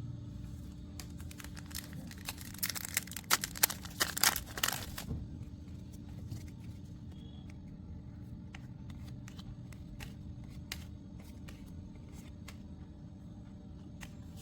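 Foil Pokémon card booster pack wrapper crinkling and tearing open in a dense burst of about three seconds, starting about two seconds in, followed by scattered light clicks over a steady low hum.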